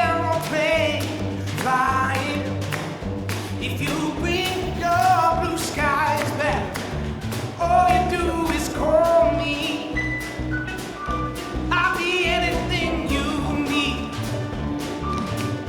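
A recorded pop song with a sung lead vocal, played over loudspeakers. Many quick sharp clicks of tap shoes striking the stage run through it.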